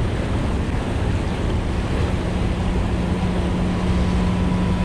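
Water pouring over a dam spillway, rushing and churning steadily. A low steady hum joins in about a second and a half in.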